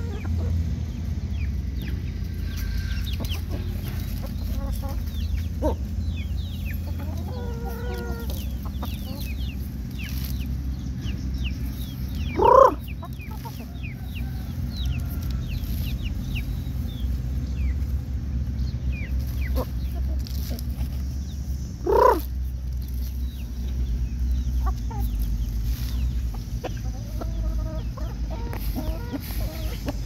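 Chickens clucking softly now and then while foraging, with two louder short calls about twelve and twenty-two seconds in, over a steady low rumble.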